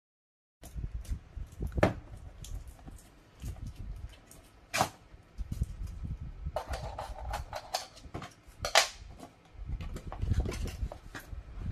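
Cardboard toy blaster box being handled and opened by hand: sharp knocks and taps, the loudest about two, five and nine seconds in, and a stretch of cardboard scraping a little past halfway, over low rumbling handling noise.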